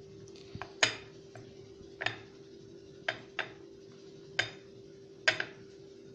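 Sharp, irregular clinks and knocks of crockery, about eight in all, as a whole fish is pressed and turned in flour on a ceramic plate by hand, over a steady faint hum.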